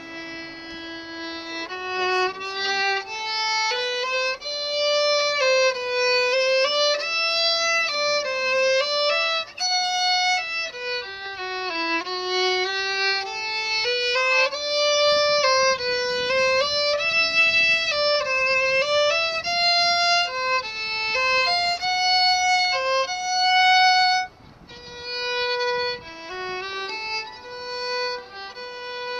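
Solo acoustic violin played with the bow, a flowing melody whose line rises and falls in pitch. About 24 s in it briefly drops away, then carries on more softly.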